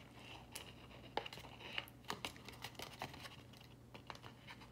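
Faint, irregular scratches and light clicks of a pen drawing a line along a paper Möbius strip held in the hands.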